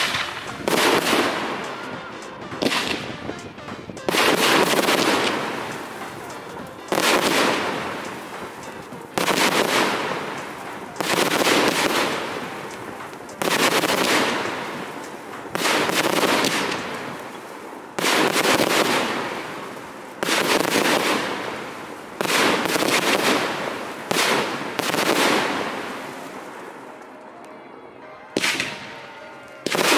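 Aerial fireworks going off one after another, about fourteen in all and roughly every two seconds: each is a sudden bang that dies away over a second or two, with a short lull near the end.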